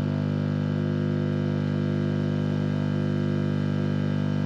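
Aeration air blower of a HABA household biological sewage treatment plant running, a steady low hum with many overtones.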